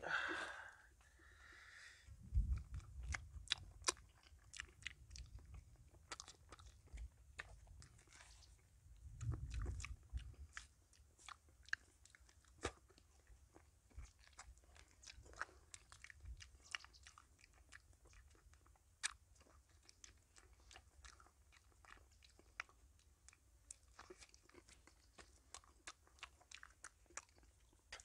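A person eating a ripe banana close to the microphone: soft chewing with many small wet mouth clicks and smacks. Low rumbling bumps come twice, in the first few seconds and again about a third of the way in.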